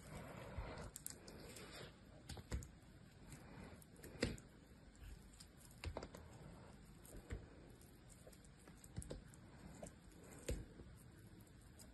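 Dry bar soap being carved with a small blade: irregular crisp cracks and clicks as shavings and chunks snap off, with a crackly scraping in the first two seconds.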